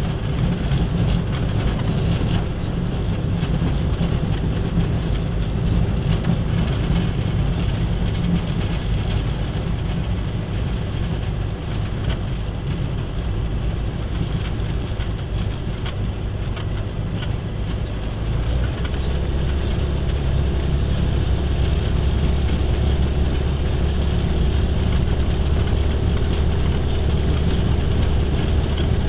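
Rans S-6 light aircraft's engine and propeller running at low power while taxiing, heard from inside the cockpit. The running is steady, and about two-thirds of the way through the engine note shifts to a deeper, stronger hum.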